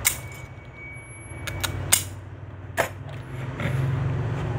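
Old steel tailor's scissors snipping several times, giving sharp separate clicks, over a steady low hum that grows louder near the end.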